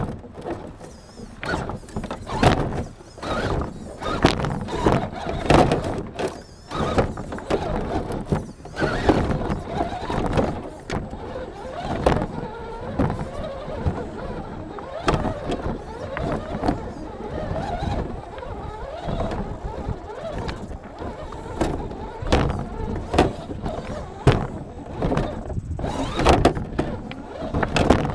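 Yikong YK4083 1/8-scale RC crawler driving over loose beach pebbles: an irregular, continuous clatter and crunch of stones shifting and knocking under its tyres, with many sharp clicks.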